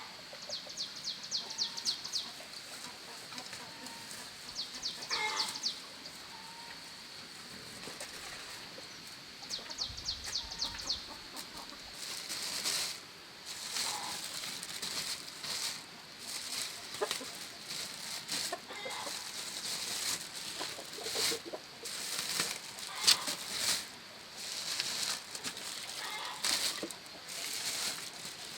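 Chickens clucking now and then over a steady high-pitched drone, with short quick trills in the first half and repeated rustling or clattering noises through the second half.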